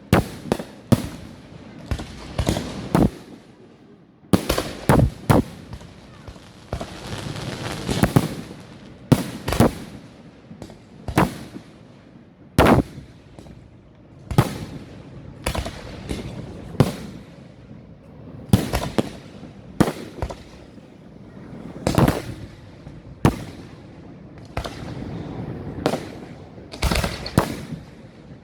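Fireworks display: a string of sharp bangs from bursting shells at irregular intervals, often a second or less apart, with a continuous crackle and hiss between them.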